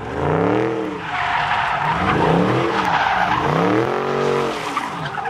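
Dodge Charger doing donuts, its engine revving up and down again and again, about once a second, while the rear tyres spin and screech, loudest through the middle seconds.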